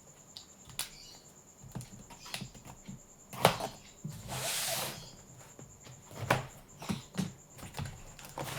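Cardboard and plastic packaging handled while a box is opened: scattered light knocks and scrapes, with a rustle lasting about a second around the middle.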